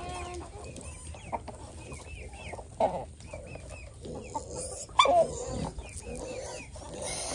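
Chickens clucking and calling around the feeding pen, with two louder calls, about three seconds in and again near five seconds.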